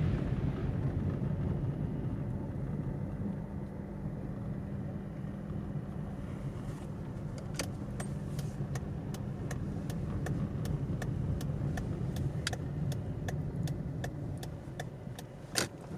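Car driving, heard from inside the cabin: a steady low engine and road hum. About halfway through, a regular ticking joins in, two to three clicks a second.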